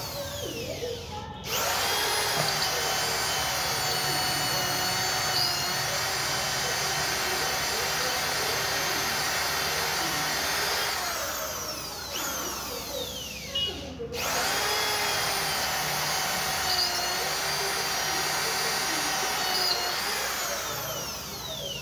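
Planet Power EID-700 RV 700 W 13 mm electric drill boring through a thick iron bar cooled with water: the motor whines steadily under load. It winds down about halfway through, starts again, and winds down near the end.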